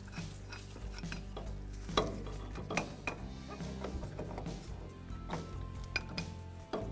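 Steel C-frame ball joint press being handled, its threaded forcing screw turned by hand, with scattered metal clicks and clinks; the sharpest comes about two seconds in.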